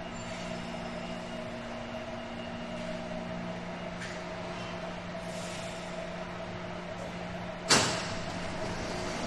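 Taipei Metro type 321 electric train slowing to a stop at the platform, with a steady low hum and whine from its running gear. About three-quarters of the way in there is a sudden loud hiss of air that fades off as the train halts, typical of the pneumatic brakes venting.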